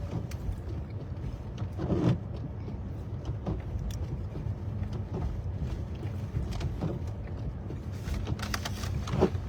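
Steady low rumble of a car driving, heard from inside the cabin, with scattered light clicks and two brief knocks, one about two seconds in and one near the end.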